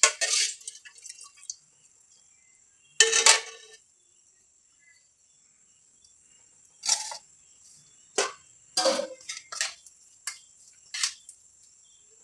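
Dishes and utensils clinking and knocking as food is served onto a plate: single sharp strikes near the start and about three seconds in, then a quick run of clinks in the second half.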